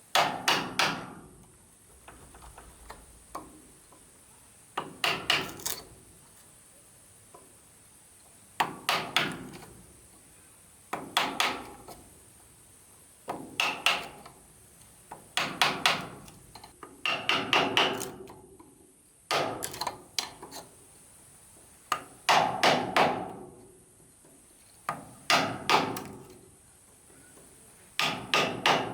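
Hammer striking wood in short runs of three to five quick blows, a pause of a few seconds between each run.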